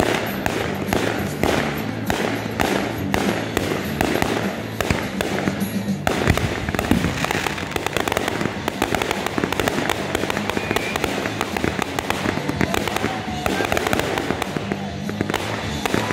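Fireworks firing in quick succession: a regular run of sharp shots that becomes a denser barrage of shots and crackling about six seconds in, with music playing underneath.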